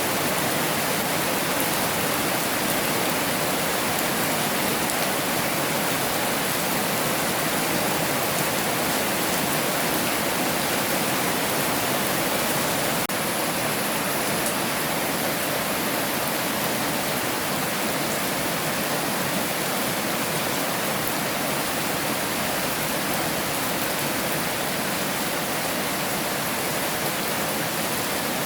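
Heavy rain falling steadily as a dense, even hiss with no distinct drops or thunder, dipping slightly in level about halfway through.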